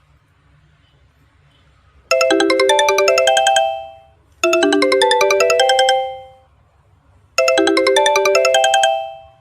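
A ringtone: a short, fast phrase of bell-like electronic notes, repeated three times with a pause of about a second between phrases. Each phrase fades out at its end. The ringing starts about two seconds in, after near-quiet.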